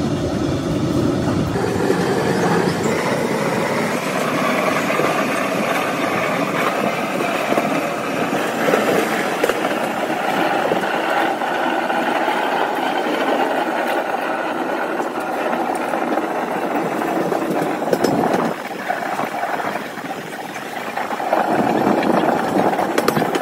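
Express passenger train running, a steady rumble of wheels and carriage noise. It drops for a few seconds near the end, then rises again.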